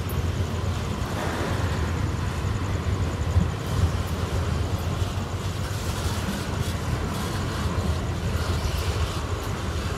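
Freight train of tank wagons rolling past close by: a steady rumble of steel wheels on rail, with occasional light clicks.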